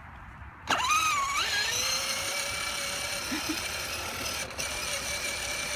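Electric drive motor and gearbox of a child's battery-powered ride-on quad starting up about a second in with a quick swoop in pitch, then running with a steady whine as it drives along.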